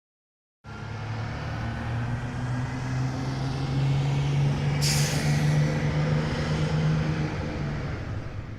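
A large engine starts up abruptly and runs steadily, its pitch rising slightly. About four seconds later a sudden sharp hiss of released air cuts in and fades.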